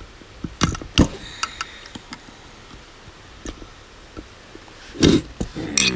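Sharp metal clicks and taps as a screwdriver works the brass primary jets out of an Autolite 4100 carburetor's main body, a few in quick succession near the start, then sparse, with a louder clatter about five seconds in.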